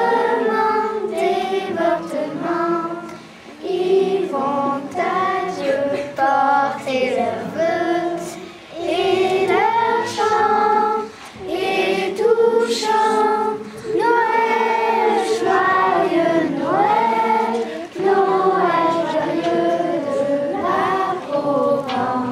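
A choir of children's voices, with women's voices among them, singing a song together in short phrases with brief pauses between them.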